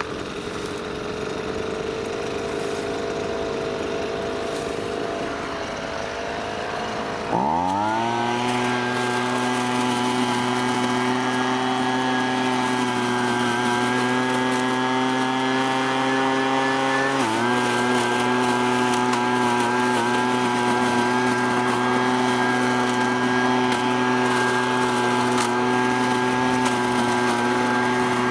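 Husqvarna 125BV blower-vacuum's small two-stroke engine running while it vacuums up dry leaves. It runs steadily at part throttle, is opened up to full throttle about seven seconds in with a quick rise in pitch, and holds there, dipping briefly and picking up again partway through.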